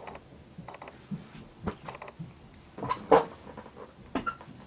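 A cardboard headphone box being handled and turned over, giving scattered light knocks, taps and scrapes, the loudest a little after three seconds in.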